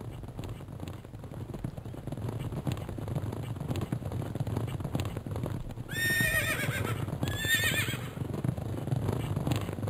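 A horse whinnies about six seconds in: a high, wavering call that falls in pitch, in two parts lasting about two seconds. A steady low rumble runs underneath.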